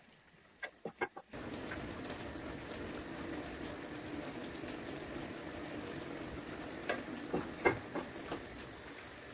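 Chicken livers sizzling and simmering in their juices in a frying pan, starting about a second in after a few light clicks. Near the end a wooden spatula knocks and scrapes against the pan several times as the livers are stirred.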